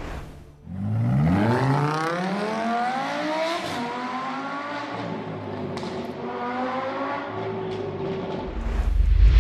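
Car engine accelerating hard: the revs climb steeply, keep rising more slowly, then level off. A loud deep boom comes in near the end.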